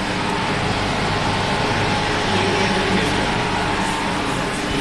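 Steady hum and fan noise of running fiber laser welding equipment: several steady low tones over an even hiss.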